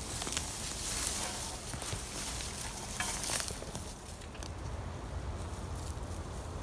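Crackling rustle of dry leaves, pine needles and twigs as someone steps and shifts about in forest litter. It is busiest in the first few seconds and settles to a quieter hiss after about four seconds.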